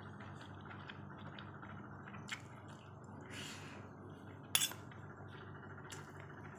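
Metal fork and spoon clicking and scraping against rice in a foam takeaway container, with a sharp clink about four and a half seconds in, over a steady low hum.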